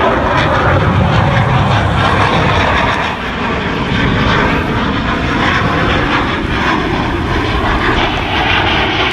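Loud, steady aircraft engine noise.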